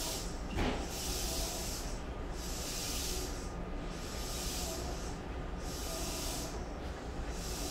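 Interior of an E235-1000 series commuter train car: a high hiss that swells and fades about every second and a half over a low steady rumble, with a single knock about half a second in.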